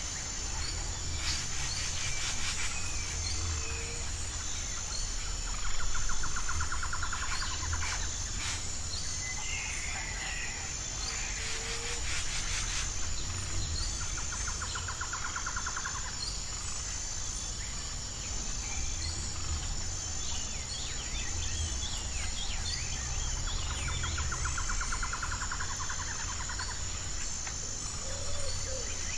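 Wild birds chirping and trilling over a steady, high-pitched chirring of insects such as crickets, with a low rumble underneath.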